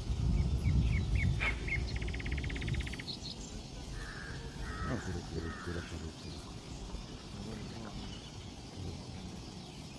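Birds calling: a few short chirps, a rapid rattling call, then harsh caws. A low rumble sits under the first few seconds and fades about 3 s in.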